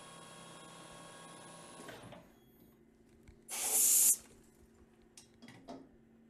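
Lathe running with a steady hum and whine that stops about two seconds in. About a second later comes a short, loud hiss of compressed air from a blow nozzle aimed at the freshly spotted workpiece, then a few light clicks.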